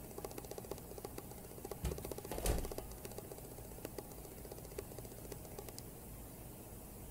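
Rapid light clicking and scraping as a silicone spatula spreads melted chocolate across an aluminium baking pan, in runs of many ticks a second. A knock comes about two and a half seconds in.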